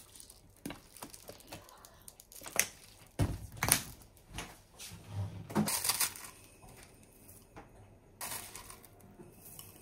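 A plastic bag crinkling and a metal spoon clicking and scraping against a ceramic bowl as minced raw tuna is spooned in, in short irregular bursts. About eight seconds in, a brief rustle as chopped green onion is sprinkled on.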